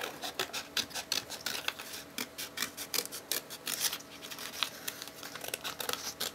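Scissors snipping through thin paperboard, a quick run of short cuts working around a small circle.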